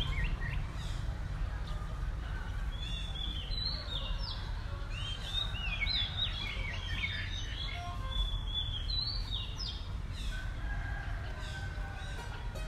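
Birds chirping and calling: many short high notes and quick downward-sliding calls, over a steady low rumble.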